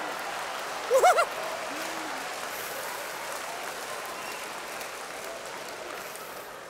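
Audience applauding after a joke, the clapping slowly dying down. About a second in comes a brief, loud vocal exclamation.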